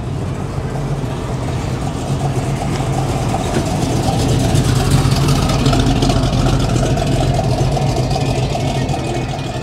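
A car engine running at low speed, growing louder through the middle and easing off near the end.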